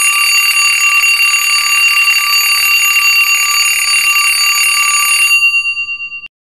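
An alarm bell rings loudly and continuously, then stops about five seconds in and its tone rings out for about a second. It is a timer alarm marking that the time for the reading section has run out.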